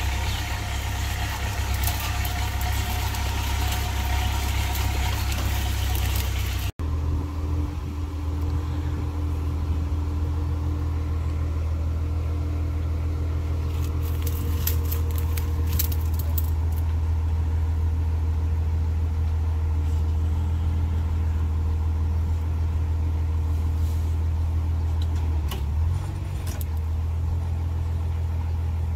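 Rollback truck's engine idling steadily while its winch and tilted bed pull a truck up, with a brief dropout about a quarter of the way in and a few sharp metallic clicks around the middle.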